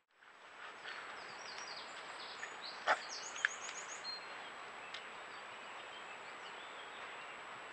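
Small birds chirping in short high calls, with one quick run of notes, over a steady hiss and a thin high tone from the trail camera's microphone. A single sharp click sounds about three seconds in.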